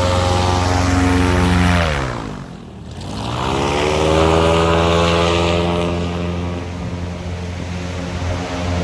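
Airboat's direct-drive Chevy 350 small-block V8 and propeller running. About two seconds in the engine speed drops sharply, then picks back up and holds steady.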